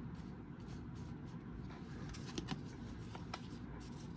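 Basketball trading cards being handled and flipped through by hand: faint sliding of card on card with a few light ticks, over a steady low background hum.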